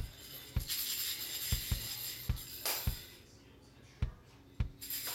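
Background music with a steady beat and jingling tambourine.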